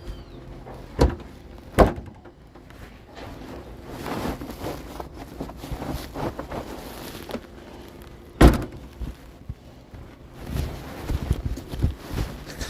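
Heavy wooden knocks and thuds of work in a sawmill: two sharp knocks about a second apart early on, a louder single thud past the middle, and a quicker run of lighter clatter near the end. No saw is cutting.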